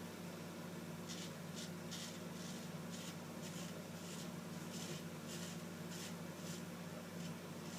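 WECK Sextoblade replaceable-blade straight razor scraping through lathered stubble in short, faint strokes, one to two a second, over a steady low hum.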